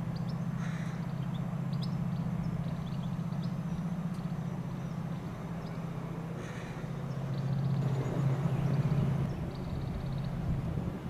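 A steady low drone of a train at the station, with a crow cawing twice, small birds chirping, and the drone swelling near the end.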